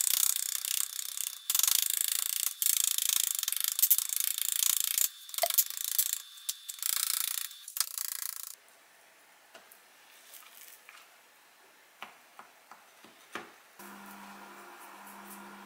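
Knife cutting into a thick raw pork loin on a plastic cutting board: a run of rasping strokes with short pauses, stopping about two-thirds of the way through, after which only a few light taps of handling are heard.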